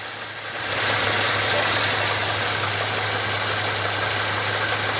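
Audi A6 C5 engine idling under the bonnet with a steady whistling hiss of air being sucked in, which comes in louder about a second in: an engine air (vacuum) leak, the cause of the under-bonnet whistle.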